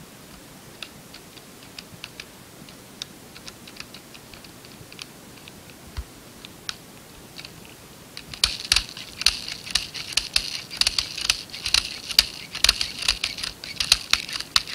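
Small plastic 6 mm BBs clicking as they are tipped from a bag into the top of an airsoft M4 magazine: scattered single clicks at first, then a dense, fast rattle of clicks from about eight seconds in.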